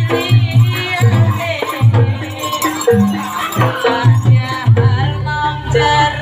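Live jaranan accompaniment music: drums beating a steady rhythm with singing over it.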